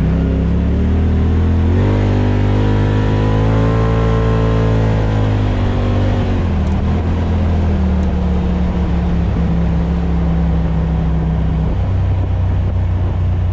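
Off-road vehicle engine heard on board while riding. It speeds up about two seconds in, holds the higher revs, eases off around six seconds, then runs steadily, with a rough rumble of travel over the trail underneath.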